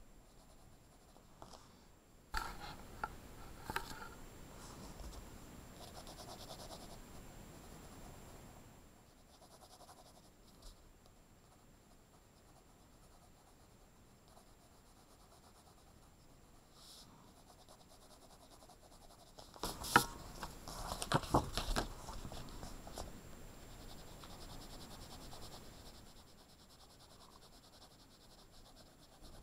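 Coloured pencil shading on paper: a soft scratching in two stretches, with a quieter spell between, and a few sharp knocks about two-thirds of the way through.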